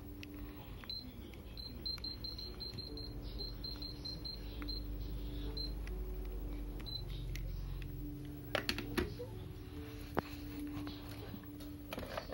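Miyako stand fan's control panel giving a quick run of short high beeps over a faint steady hum. A few sharp clicks follow in the second half.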